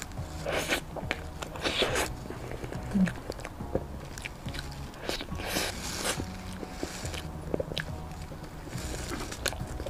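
Biting and chewing a soft durian mille-crêpe cake filled with fresh durian flesh and cream, in several short spells of mouth sounds.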